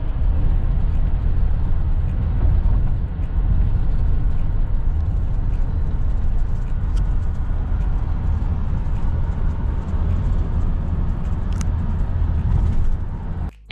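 Car cabin noise while driving on a highway: a steady low rumble of tyres and engine heard from inside the car.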